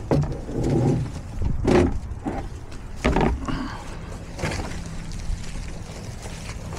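Netted fresh-cut Christmas tree being dragged across a pickup truck bed, its branches and netting scraping and rustling in a series of pulls.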